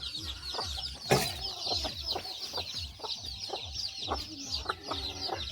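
Free-range native chickens clucking over constant high peeping from many chicks. Soft regular thuds run underneath, with one sharp knock about a second in.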